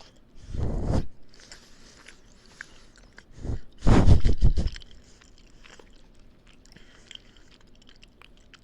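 Close-miked chewing and biting of a burrito: soft wet mouth noises, with two louder, bass-heavy bursts about half a second in and again around four seconds in.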